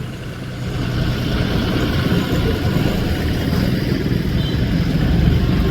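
John Deere 5310 tractor's diesel engine running steadily, growing louder about a second in.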